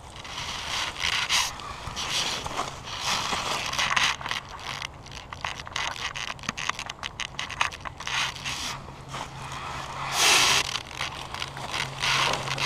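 Rustling and crinkling of a Tyvek groundsheet and nylon mosquito netting being handled and shifted, in irregular bursts with many small crackles and a louder rustle near the end.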